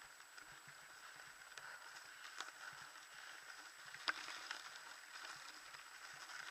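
Mountain bike ridden over dry, grassy dirt: faint tyre and drivetrain noise with light rattles and clicks from the bike, the loudest a sharp knock about four seconds in.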